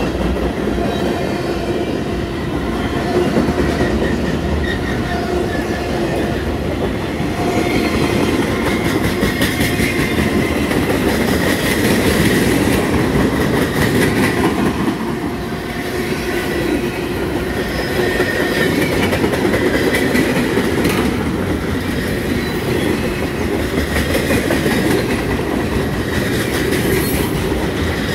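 Loaded freight-train flatcars rolling past close by: a steady rumble of steel wheels on rail with clacking as the wheels cross rail joints.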